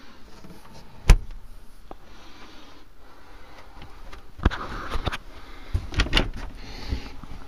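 The motorhome's Electrolux fridge door shuts with a sharp click about a second in. A run of knocks and rattles follows later, from camper fittings being handled.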